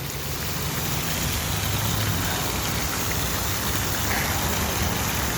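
Water fountain splashing steadily, an even hiss of falling water with a low rumble underneath.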